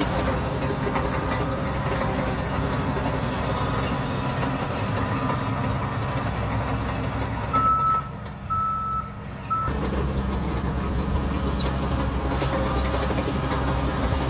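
Shantui DH17C3 Pro bulldozer's diesel engine running steadily under load. About eight seconds in the engine sound drops away briefly while a reversing alarm gives three short beeps, then the engine sound returns.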